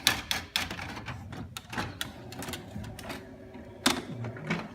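Epson L3110 ink-tank printer running its power-on start-up cycle: irregular sharp clicks and clacks from the mechanism over a low motor hum.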